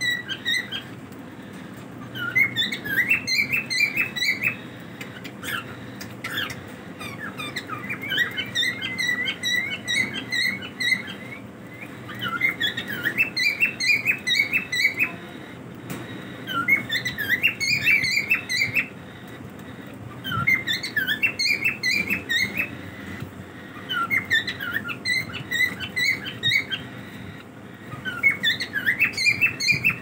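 Cockatiels chirping in short bursts of quick, high chirps, a burst every three to four seconds.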